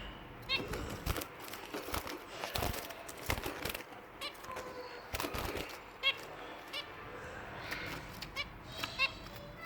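Pet finches giving short, repeated high calls, a few seconds apart, among scattered clicks.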